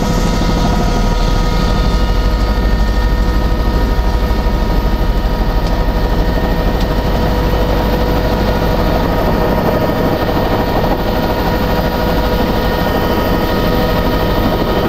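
A tour helicopter running on the ground with its rotor turning. A steady turbine whine sits over the fast low chop of the blades and the rush of the rotor wash.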